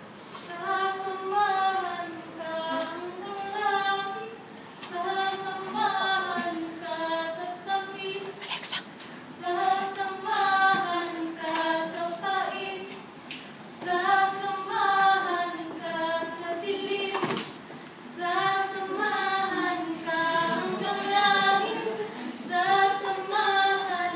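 Female voices singing unaccompanied, in sustained phrases of about three to four seconds with short pauses for breath between them.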